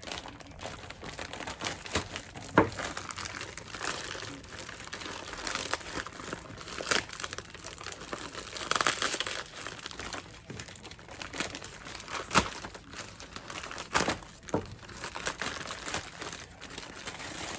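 Plastic packaging crinkling and rustling as parcels are unwrapped and rummaged through by hand, with a few sharp snaps and clicks.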